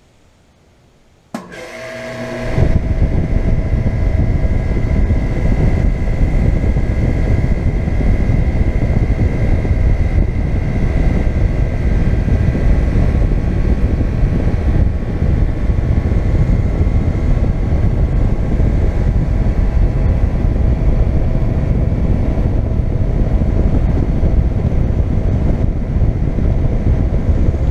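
2007 four-ton Guardian central air conditioner's outdoor condensing unit starting up: a sharp click about a second in, then the compressor and condenser fan come up to speed over about a second and settle into a steady, loud hum and rush of fan air with a faint whine.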